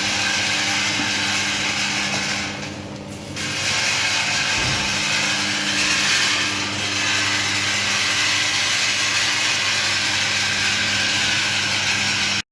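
Rotary seed-drying machine running: a steady low motor hum under a dense, even hiss. The level dips briefly about three seconds in, and the sound cuts off suddenly at the end.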